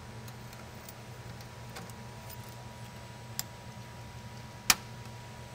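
Rotary-knob circuit breaker on an electrical control panel being switched by hand: a few small clicks, then a sharp snap about four and a half seconds in as the knob is turned, over a steady low hum. The breaker is being switched back on after the lockout-tagout is removed.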